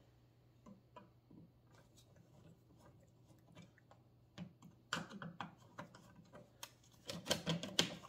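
Small clicks and taps of a plastic switch cover plate and a screwdriver knocking against a dimmer switch and its wall box as the plate is test-fitted. The clicks are scattered, with busier clusters about five seconds in and near the end.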